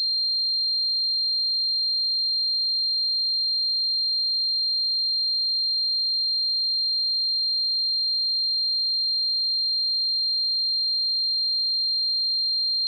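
Tinnitus simulation: a single steady, high-pitched ringing tone, like the constant ringing in the ears of tinnitus, holding unchanged throughout.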